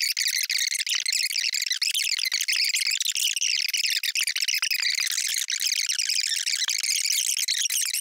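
Men's debate voices played back at many times normal speed, turned into a continuous high-pitched squeaky chatter with no recognisable words.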